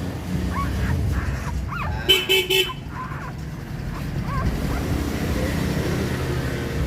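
A vehicle horn beeping three quick times about two seconds in, over a steady low traffic rumble. A few faint short squeaks are heard around it.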